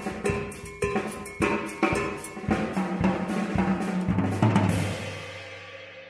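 Drum kit played in a fast, busy groove of snare, bass drum and cymbal strikes, ending on a final hit about four and a half seconds in; the drums and cymbals then ring out and fade away.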